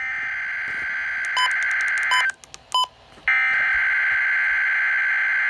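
Emergency Alert System SAME header data bursts: two long bursts of shrill, buzzing digital tones separated by about a second's gap, with a few short beeps about one and a half and three seconds in. They mark the start of a weather alert, here a severe thunderstorm watch.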